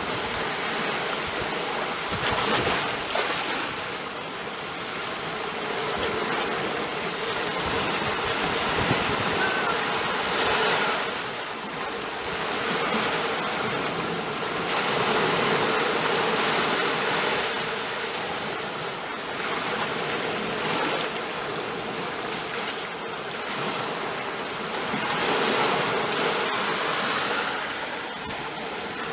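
Sea waves washing in as a steady rush of surf that swells and eases every several seconds.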